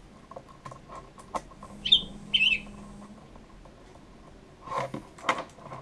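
Light clicks and taps of small screws and brass standoffs being handled and fitted into an acrylic LCD bracket, with a busier run of clicks near the end. About two seconds in come two short high chirps, half a second apart, each falling in pitch.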